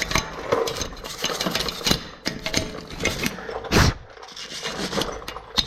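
Wire brush scrubbing rust scale off a steel truck wheel hub, in quick irregular scratchy strokes, with one louder knock about four seconds in.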